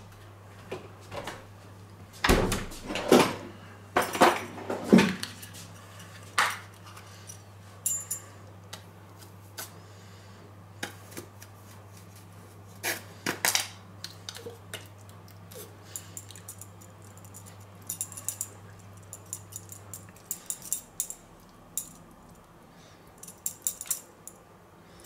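Kitchen handling sounds: sharp knocks and clinks as a barbecue-sauce bottle and basting brush are handled over a stainless steel tray of ribs on a wire rack, loudest in the first few seconds, then lighter clicks and soft scraping as the sauce is brushed on. A faint low hum underneath stops about 20 seconds in.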